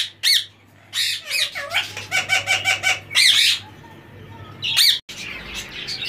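Parakeet squawking: a series of loud harsh calls, with a rapid stuttering run of short calls about two seconds in and another loud call near the end.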